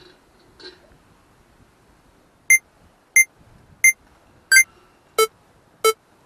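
A series of six short electronic beeps, about two-thirds of a second apart, starting about two and a half seconds in. The first four are high and alike; the last two carry an added lower note. It is a sound effect laid over the footage.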